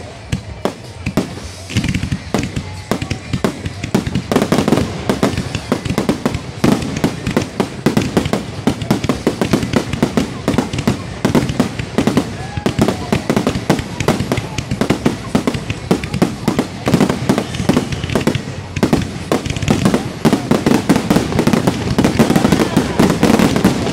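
Fireworks display: a rapid, continuous run of aerial shell bursts and crackling that grows denser and louder toward the end.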